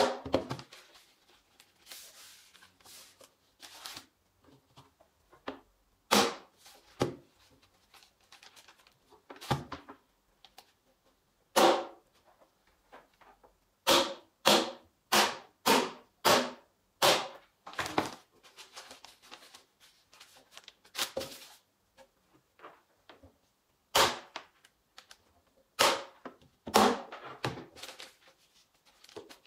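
Corded electric staple gun firing staples through plastic sheeting into the wood of a planter box: sharp single shots at uneven intervals, with a quick run of about two a second in the middle. The plastic sheeting rustles between shots.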